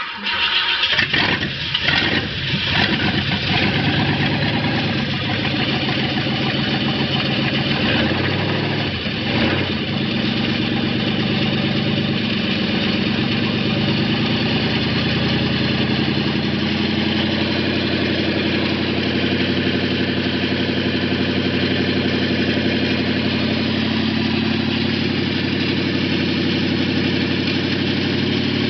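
An engine starts abruptly, runs unevenly for the first few seconds with its speed shifting, then settles into a steady idle.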